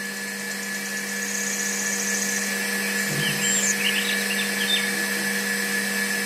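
Small electric motor of a toy tractor running steadily with a constant whine, driving a miniature hand pump's flywheel through a rubber belt.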